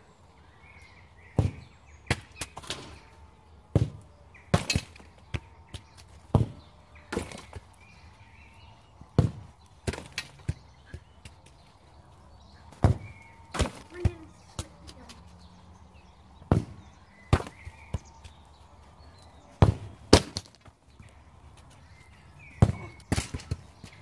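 A leather football being kicked again and again on grass: sharp thuds every second or two, often two close together.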